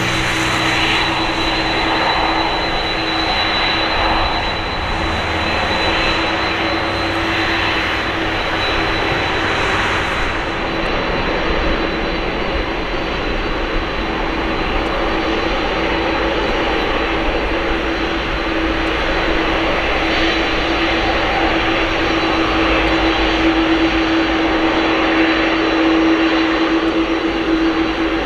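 Boeing 747-400's four jet engines running at high power during the takeoff roll: a steady jet noise with a constant droning tone underneath, growing a little louder near the end.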